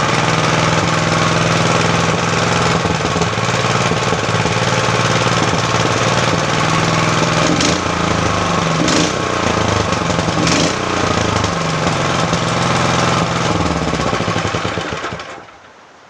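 Engine running under a power test, its speed shifting a few times. It winds down and stops near the end.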